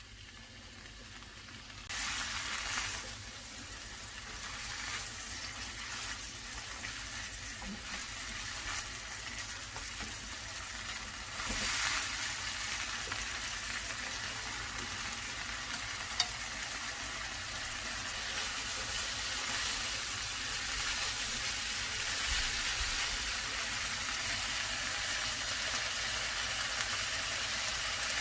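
Bracken fern shoots seasoned with soy sauce and perilla oil sizzling in a frying pan over medium heat as they are stir-fried. The sizzle jumps louder about two seconds in and builds a little toward the end.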